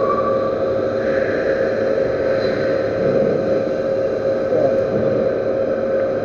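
Metal lathe running steadily, its motor and spindle giving a constant whine over a mechanical hum.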